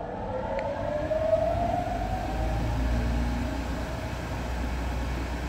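Blower motor of a 121-key Decap dance organ starting up: a whine that rises in pitch over the first two seconds and then holds steady, over a low hum.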